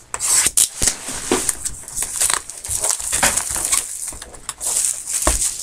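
Trading-card pack wrappers crinkling and tearing as packs are opened, with cards handled: a busy, sharp crackle made up of many small clicks.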